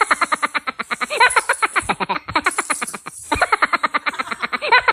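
Background music: a fast, even run of short plucked notes, about ten a second, with a short break about three seconds in.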